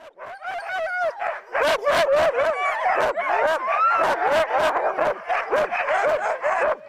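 A team of harnessed sled dogs barking and yipping all at once, many voices overlapping into a continuous clamour. It builds up over the first second or so and then stays loud. This is the excited noise sled dogs make while waiting in harness to start a run.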